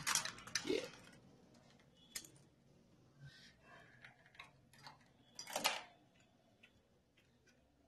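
Faint metallic clicks and clinks of a TVS Victor's roller drive chain being handled and worked off its sprocket by hand, with a brief louder rattle a little past halfway.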